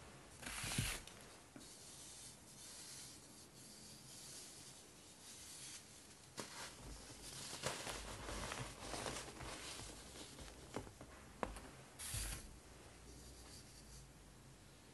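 Clumps of dyed baking soda crushed and crumbled in the hands: a soft, gritty crunching and rubbing with sharp little crackles, and louder crunches about a second in and again near the end.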